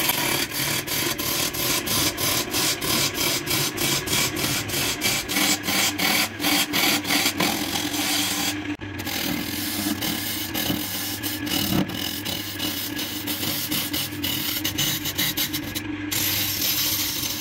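Wood lathe running while a hand-held turning chisel cuts into a spinning wooden blank: steady scraping and rasping of the tool on the wood over a constant motor hum, with a fast, regular pulsing in the cut over the first half. The sound breaks off briefly twice, near the middle and near the end.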